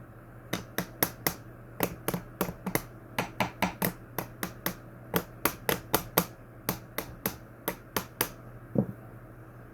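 A rapid run of sharp clicks and taps, about three a second, from hands-on work on a Lasko box fan's blade and motor to get it to spin freely, ending with one duller knock.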